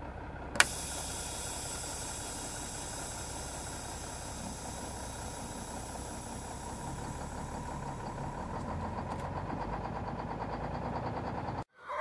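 Pickup truck engine running steadily, with a single sharp click about half a second in; it cuts off suddenly near the end.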